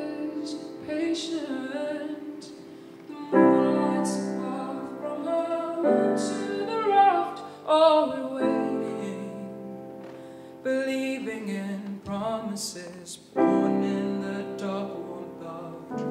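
A woman singing a slow song over ringing chords that are struck afresh every two to three seconds and left to fade.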